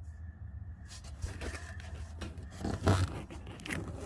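Short, uneven scraping and rustling noises of someone shifting about under a car, loudest about three seconds in, over a low steady hum.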